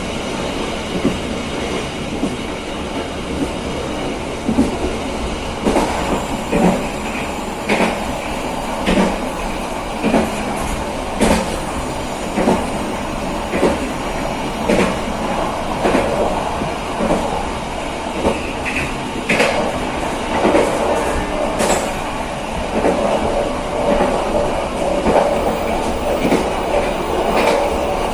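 Wheels of a moving passenger train running on the rails: a steady rumble with a sharp clickety-clack about once a second as the wheels cross rail joints.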